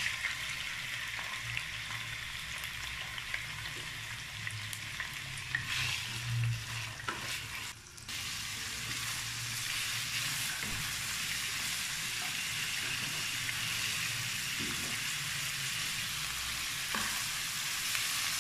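Chicken pieces sizzling as they fry in hot desi ghee in a nonstick frying pan, with a spatula scraping and knocking against the pan as they are stirred. The sizzle starts as the chicken hits the ghee and briefly drops out about eight seconds in.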